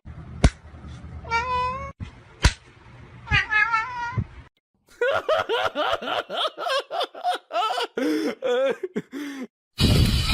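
A cat meowing, with two drawn-out wavering meows followed by a long run of quick, short yowling calls. Two sharp clicks come in the first few seconds, and a loud hiss-like noise cuts in near the end.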